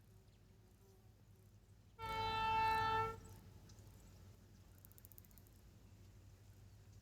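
Diesel locomotive horn sounding one blast of about a second, about two seconds in, over a low steady hum.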